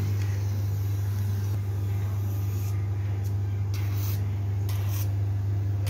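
Hydrafacial machine running with a steady low hum, with a few short soft hisses of suction at the tubed handpiece on the skin.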